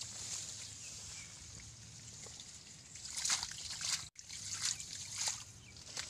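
Hands splashing and sloshing in shallow muddy water while groping for fish, with a few short splashes in the second half over a steady high hiss.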